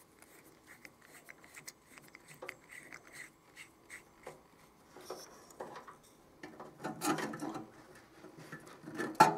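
Faint ticks and scraping of a small Edison screw bulb's metal cap being screwed by hand into its plastic lamp holder. The handling gets louder for the last couple of seconds, with a single sharp click near the end.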